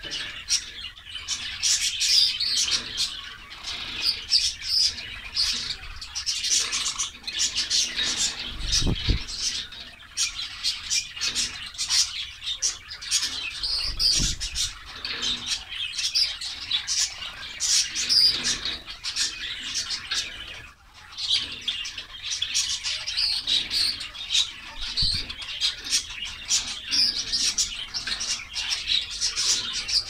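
A caged flock of white Java sparrows chirping without a break, many short, high calls overlapping one another. A few dull low bumps come through near the middle.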